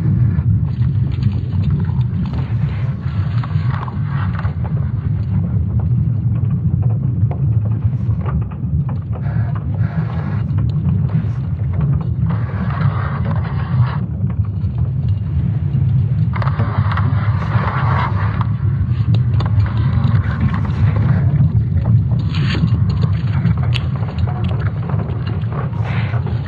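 Sonification of Earth's magnetic field, made from ESA Swarm satellite measurements: a steady deep rumble, with bursts of harsher hissing noise coming and going every few seconds.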